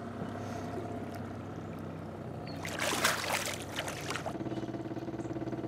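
A striped bass dropped back over the side of the boat, splashing into the water about three seconds in, over a boat motor's steady idle. Near the end a second, steadier hum with a fast pulse joins the motor.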